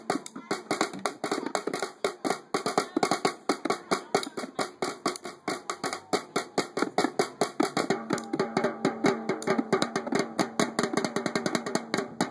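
A set of three small toy drums played with wooden drumsticks: a fast, continuous stream of stick strokes, many hits a second with no break.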